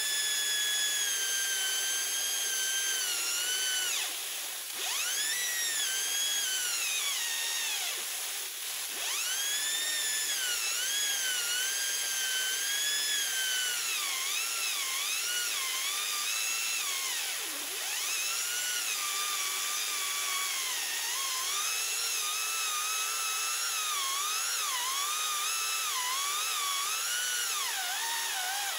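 A chainsaw chain and sprocket spun by a 60,000 PSI waterjet, giving a high, drill-like whine over the hiss of the jet. The whine's pitch keeps wavering, sagging and recovering, and drops sharply a few times.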